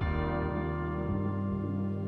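Soft ambient background music: a sustained chord over a steady low drone.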